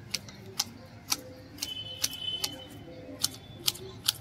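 Manual hedge shears snipping a small conifer shrub: a series of sharp, irregular clicks as the blades close, roughly one every half second.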